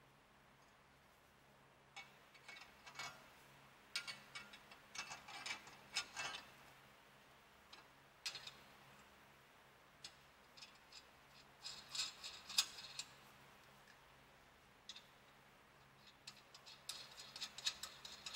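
Small metal parts clinking and clicking in short irregular clusters as a brake lathe's hub adapter is fitted by hand over the wheel studs and brake disc, over a faint steady hum.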